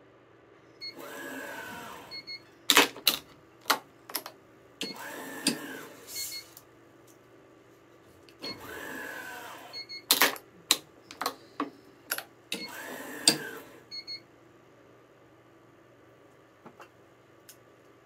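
Tension head of a Yonex ES5 Protech racket-stringing machine pulling the string to tension four times. Each pull is a motor whir of about a second, with a short beep as it starts and ends. Loud sharp clicks of the clamps and string come between the pulls.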